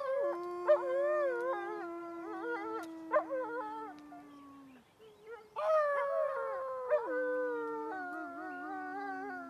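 A group of canids howling in chorus: several long, overlapping howls at different pitches, one low howl held and slowly falling while higher voices waver and break into short yips. The chorus fades out partway through and a second round starts about five and a half seconds in, with a few sharp pops among it.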